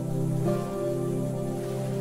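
Slow new-age relaxation music of long held chords, moving to a new chord about half a second in.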